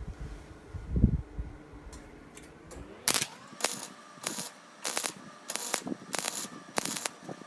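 Flux-core wire-feed welder striking a series of short arc bursts on a rusty steel muffler, about seven in a row, one every half second or so, beginning about three seconds in: stitch-welding cracked welds. Before them, a single thump about a second in.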